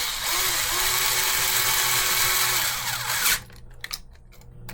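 Small power driver running as it drives a screw, for about three seconds, with a steady motor whine; it stops abruptly about three quarters of the way in.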